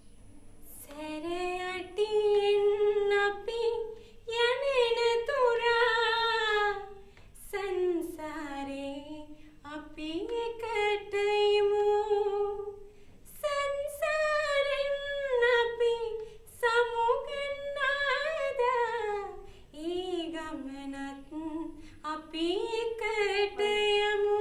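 A woman singing solo without accompaniment, a slow melody with long held notes and short breaths between phrases.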